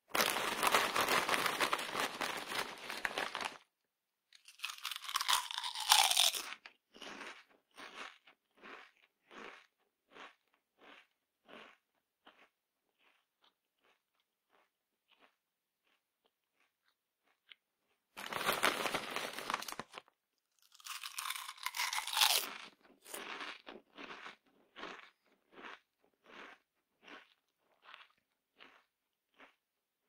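Someone eating crunchy potato chips, twice over. Each round starts with a few seconds of dense crackling, then a loud crunching bite, then steady chewing at about two crunches a second that grows fainter and stops.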